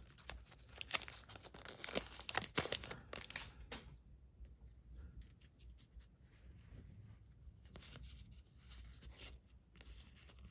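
Foil Yu-Gi-Oh booster pack wrappers crinkling and tearing open, dense and loud for the first four seconds or so. After that, fainter rustling and light clicks of packs and cards being handled.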